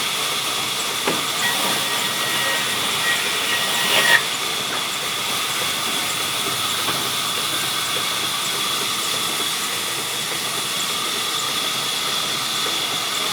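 Sawmill machinery running steadily: a continuous high hiss with a steady whine. A thin whistle in it stops with a sharp click about four seconds in.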